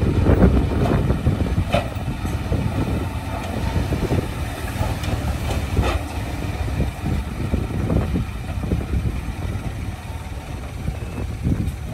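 Diesel engine of heavy earthmoving machinery running steadily with a low rumble, with a couple of short sharp knocks.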